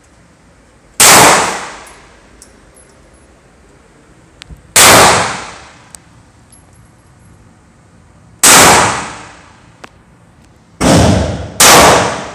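Five shots from a Taurus PT111 G2 Millennium 9mm pistol, fired slowly a few seconds apart, with the last two in quick succession near the end. Each shot rings out with a long echo off the walls of the indoor range.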